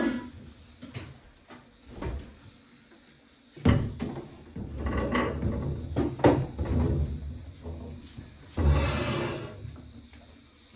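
Scattered knocks and bumps of household handling: a wooden chair being carried and set down on the floor and the kitchen door being opened, about five separate thumps with the loudest two about a third of the way in and near the end.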